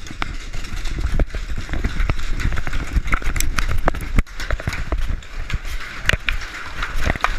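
Many paintball guns firing at once: a dense, irregular rattle of sharp pops, several a second, over a low rumble.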